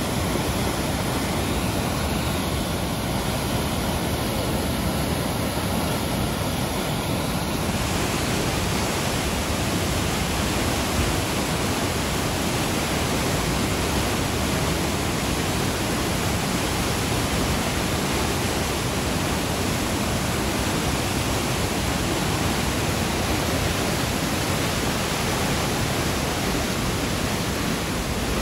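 Steady, even roar of rushing floodwater, with no separate splashes or knocks.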